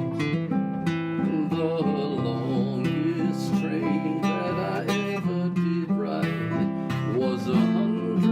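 Acoustic guitar playing a simple folk accompaniment on the three chords C, F and G7, strummed in a steady rhythm.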